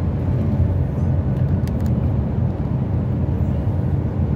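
Loaded truck driving along a highway, heard from inside the cab: a steady low engine and road drone.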